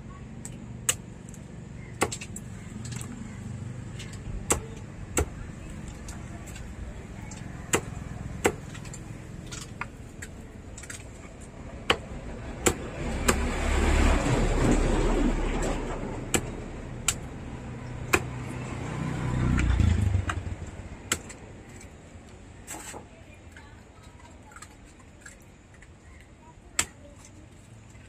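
A large knife chopping carp on a wooden stump block: sharp knocks at an uneven pace, a second or so apart. Around the middle a louder, deeper rushing sound swells up twice.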